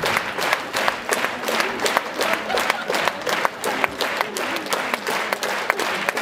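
Theatre audience applauding a curtain call: dense, steady clapping with sharp individual claps standing out close by.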